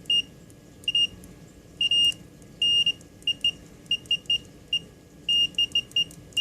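AmazonCommercial 90DM890 digital multimeter's continuity beeper sounding as its test leads make contact: one high-pitched tone in irregular beeps, mostly short blips with a few held for a quarter second or so.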